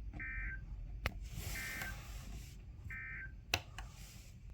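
Emergency Alert System end-of-message data tones: three identical short, screechy two-tone digital bursts about a second and a half apart, signalling that the alert is over. Two sharp clicks fall between the bursts.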